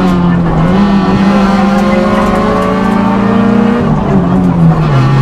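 Onboard sound of a two-litre four-cylinder rally car engine pulling on a tarmac stage, its note climbing slowly, then dropping sharply a little before four seconds in and settling lower near the end.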